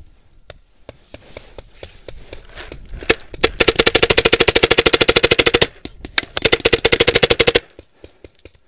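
Paintball marker firing: a couple of single pops, then a fast string of shots lasting about two seconds, a short pause, and a second burst of about a second and a half.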